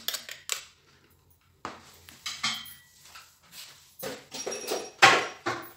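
A metal spoon knocking and scraping against a plastic mixing bowl and hand-mixer beaters while working stiff whipped egg whites. It comes as scattered clicks and scrapes, busiest and loudest in the last two seconds.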